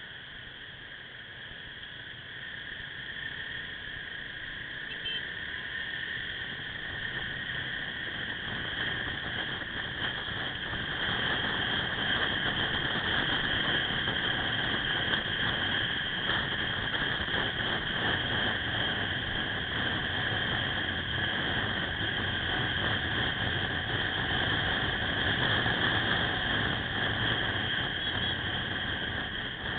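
Riding noise from a Suzuki Axelo motorcycle, a mix of wind and engine, picked up by the camera mounted on the bike. It grows louder over roughly the first ten seconds as the bike pulls away and gathers speed, then holds steady. A steady high-pitched whine runs through it.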